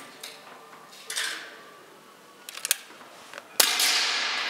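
Sharp crack of a Daystate Red Wolf .177 air rifle shot near the end, its report ringing and fading for about a second in the indoor range. A fainter crack comes about a second in, and a few light clicks follow it.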